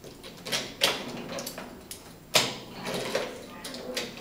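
Wooden toys knocking and clacking against a wooden train play table: a few sharp knocks, the loudest about two and a half seconds in.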